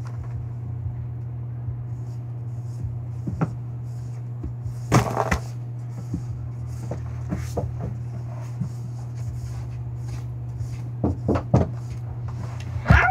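Steady low hum under scattered light knocks and rustles of paper and a pencil being handled, the loudest knock about five seconds in and a few more near the end.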